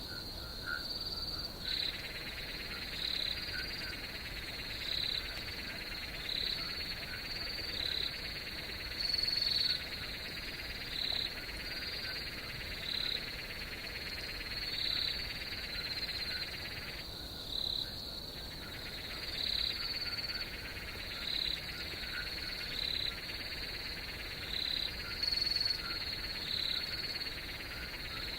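Night-time chorus of crickets and frogs: a steady high insect trill with a repeating call about once a second, and a lower buzzing layer that stops briefly in the middle.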